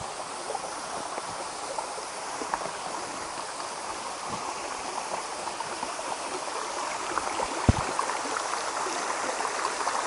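Mountain stream babbling over rocks, a steady rush that grows slowly louder. A single sharp knock about three-quarters of the way through.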